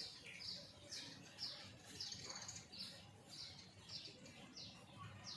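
A small bird chirping: a run of short, high, falling notes, about two a second.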